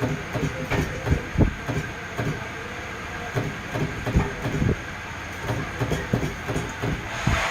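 Irregular sharp knocks and clicks, a few a second, over a steady mechanical hum, with a louder rushing swell near the end.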